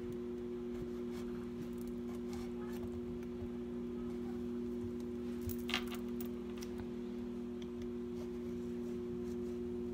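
Microwave oven running with a steady two-tone hum, cooking a dish. There is a brief clatter of small clicks about six seconds in.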